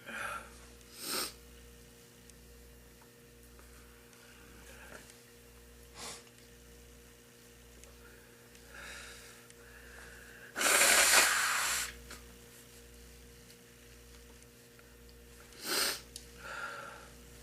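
An elderly woman smoker's nose and breath sounds between coughing fits: several short sniffs and snorts, and one loud rushing nasal burst about a second long near the middle.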